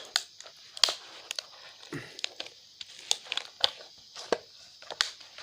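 Plastic casing of a lithium-ion laptop battery pack cracking and snapping as it is pried and broken open: a string of irregular sharp cracks and clicks.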